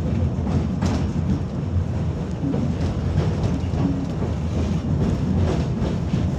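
Tatra T6A5 tram running along the track, heard from inside the passenger cabin: a steady low rumble of wheels on rail, with a few faint clicks as the wheels pass rail joints.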